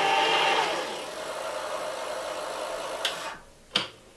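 Bafang BBS02 mid-drive e-bike motor whining under power, cutting off about a second in. A quieter whir from the spinning drivetrain fades over the next two seconds, followed by a few sharp clicks near the end.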